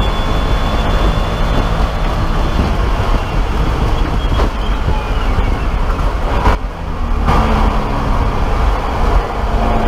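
BMW E30 race car's straight-six engine running hard at high speed, heard from inside the stripped cockpit. The car brakes hard from about 120 mph, and the sound dips for about a second just past the middle, then the engine runs on at lower revs and begins to pick up near the end.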